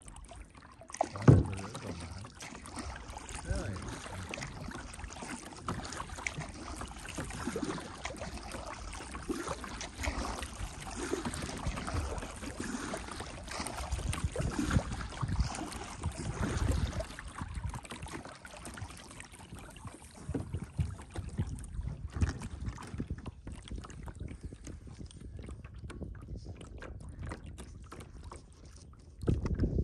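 Lake water sloshing and lapping against a small boat as it moves along, in irregular splashes, with one sharp knock about a second in.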